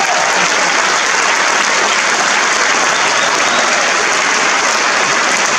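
Large theatre audience applauding steadily: a dense, sustained ovation at a curtain call.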